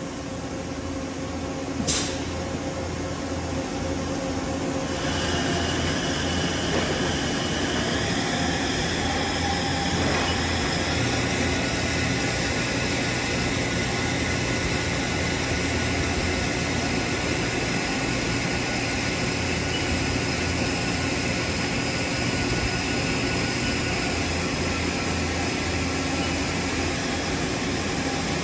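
Mori Seiki MH-63 horizontal machining center running under power: a steady machine hum with high whining tones, growing louder over the first few seconds and then holding level. A sharp click about two seconds in.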